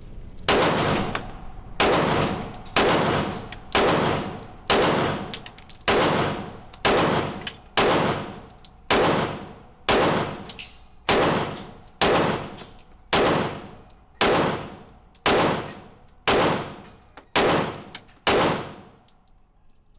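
A 9mm handgun fired in slow, steady succession: about eighteen shots, roughly one a second, each with an echoing tail, stopping near the end.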